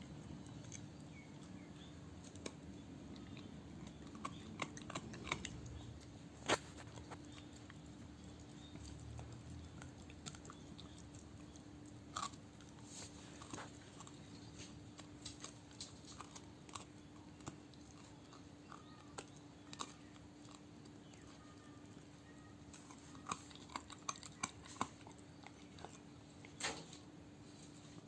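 A dog gnawing a hard calcium chew bone: irregular crunches and sharp clicks of teeth on the bone, coming in clusters, over a faint steady hum.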